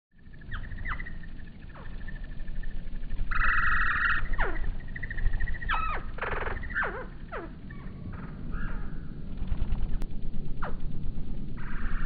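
Hummingbird sound slowed to one-fifth speed: a low, pulsing wing hum and several drawn-out chirps that slide down in pitch.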